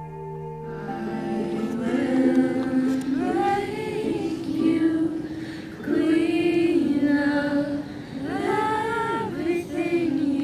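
Soft instrumental music fades out in the first second, then a small group of mostly female voices sings unaccompanied.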